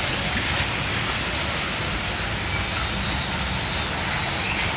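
Steady rush of churning white water around a river-rapids raft, a continuous noisy hiss with no clear rhythm.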